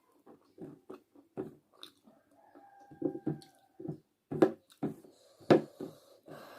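A person chewing a mouthful of chicken biryani close to the microphone: irregular wet smacks and clicks, a few of them louder in the second half.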